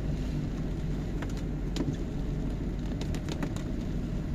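Steady low drone of a car's engine and tyres on a wet road, heard from inside the cabin, with scattered light ticks of rain on the car.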